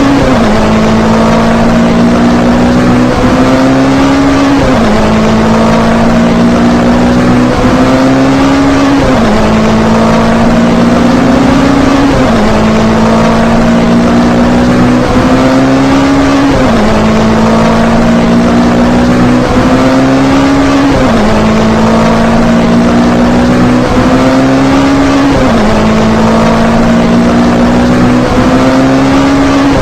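Race car engine at full throttle, its pitch climbing slowly through each gear and dropping sharply at each upshift, about every four seconds, over and over.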